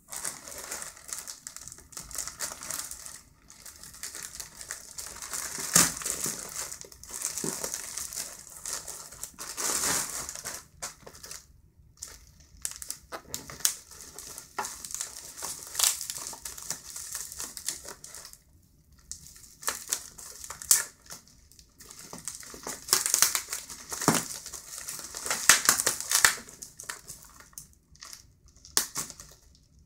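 Plastic courier mailer bag and bubble wrap crinkling and rustling as they are handled and opened, in irregular bursts with sharp crackles.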